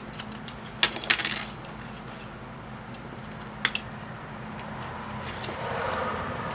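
Sharp metallic clicks and clinks from wire cutters snipping a power strip's wires close and from small brass parts being handled. There is a cluster about a second in and a quick pair near four seconds in.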